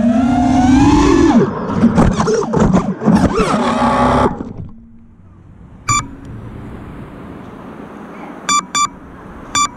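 An FPV freestyle quad's brushless motors whine up in pitch, then the propellers chop and clatter into branches and vines as the quad crashes into the foliage, and everything cuts out about four seconds in. After that there is a steady background hiss with four short beeps: one about six seconds in and three near the end.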